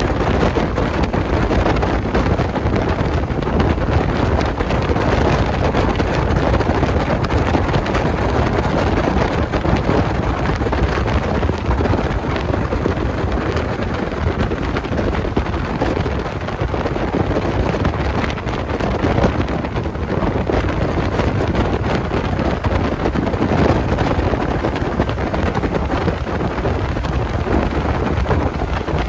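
Steady wind rush on the microphone of an open Willys CJ3A Jeep travelling fast downhill, over the running of its four-cylinder Go-Devil flathead engine.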